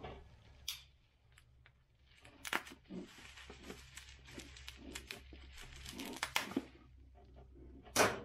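Plastic packaging being cut open with a dull knife: irregular crinkling, tearing and scraping with scattered clicks, after a quiet first two seconds, and one sharp click near the end.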